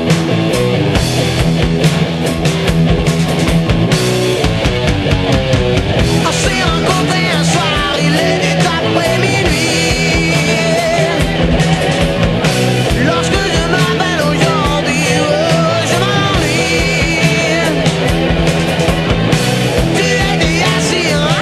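Loud rock music with electric guitar playing bending lead lines over a driving beat.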